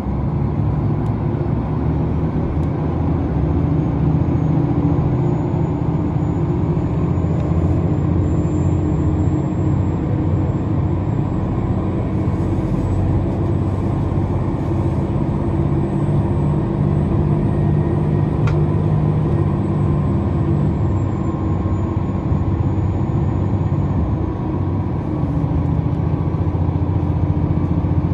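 KiHa 283 series diesel express train running at speed: a steady drone of engine and wheels on rail, with a faint high whine that rises and falls through the middle and a single sharp click about two-thirds of the way through.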